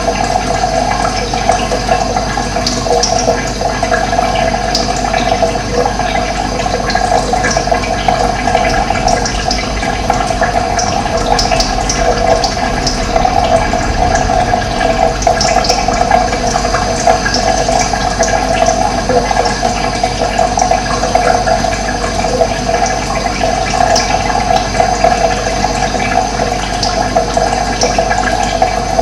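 Steady running water, an even, continuous flow with no pauses.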